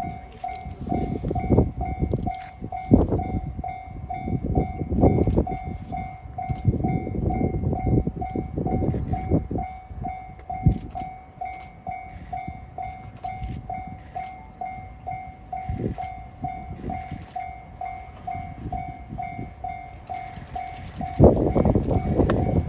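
Japanese level-crossing alarm bell ringing about twice a second while a freight train's wagons rumble and clatter over the crossing. Near the end the bell stops and a louder noise takes over.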